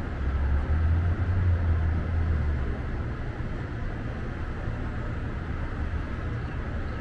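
Low, steady outdoor rumble, louder for the first few seconds and then settling.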